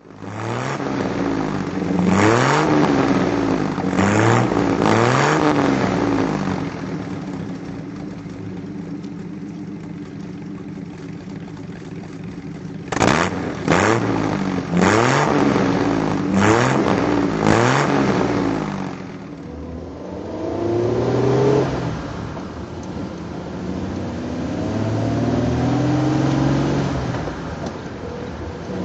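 Six-cylinder 4.25-litre Bentley engine running and being revved with the throttle: a few quick revs in the first seconds, a steady idle, then a fast series of five sharp revs in the middle, and slower, gentler rises in engine speed near the end.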